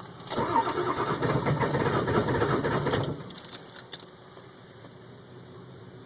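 Ford 7.3-litre Powerstroke V8 turbo-diesel cranking on the starter for about three seconds without catching; the cranking then stops abruptly. This is a cold hard start with white smoke, which the owner suspects may mean a glow plug needs replacing.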